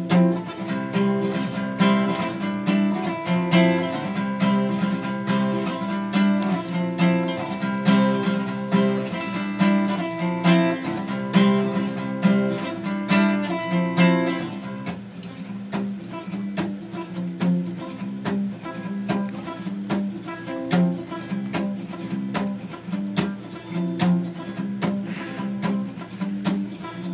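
Acoustic guitar strummed in a steady rhythm, an instrumental passage with no singing; it gets somewhat softer about halfway through.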